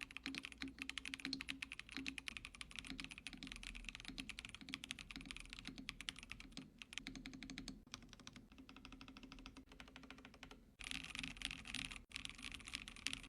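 Fast typing on an ATTACK SHARK K86 mechanical keyboard with its creamy 'Blue Whale' switches: a quick, steady run of soft keystroke clacks, with two brief breaks near the end.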